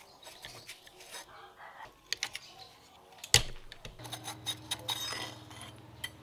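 Metal clicks and knocks as a rusty mountain bike handlebar is worked loose and slid out of its stem clamp, with one sharp metal clank about a third of the way in. A steady low hum comes in about two-thirds of the way through.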